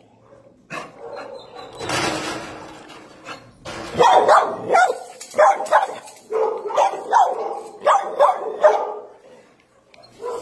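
Shelter dogs barking in kennel runs, a quick string of barks from about four seconds in, after a brief rush of noise near the start.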